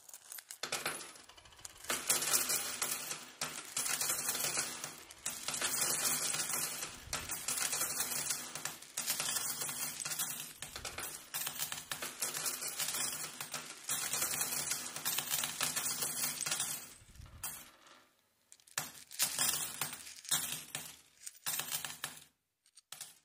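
A shower of metal coins pouring and clinking onto a heap of coins, building up over the first two seconds into a dense, continuous jingle. Near the end it breaks up into shorter, scattered runs of clinks before stopping.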